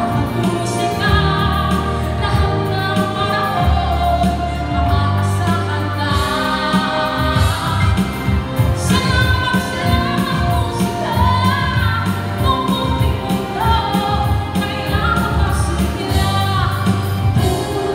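A woman singing into a handheld microphone over instrumental accompaniment, amplified through loudspeakers. Her sung melody rises and falls over a steady, continuous backing.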